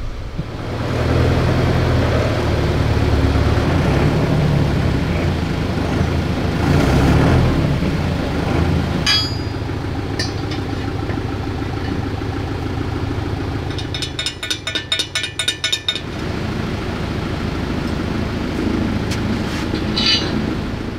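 Steady low mechanical hum of a machine running, with a few short metallic clinks and a fast, even rattle lasting about two seconds some two-thirds of the way through.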